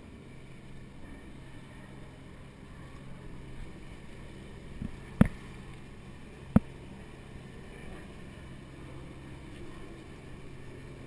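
Steady wind and water noise of a sailing catamaran under way, with a low steady hum underneath. Around the middle come two sharp knocks about a second and a half apart.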